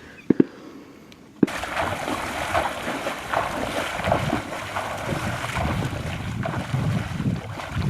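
Two sharp knocks close together, then from about a second and a half in, wind buffeting the microphone in a steady, gusting rush.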